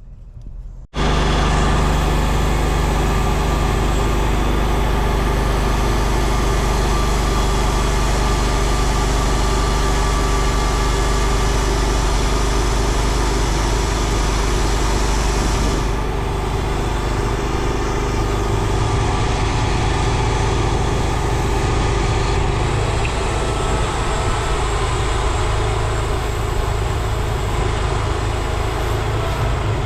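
Timberking 1600 portable bandsaw mill running, its engine droning steadily as the band blade cuts boards off an oak cant. The sound comes in abruptly about a second in and shifts a little around the middle.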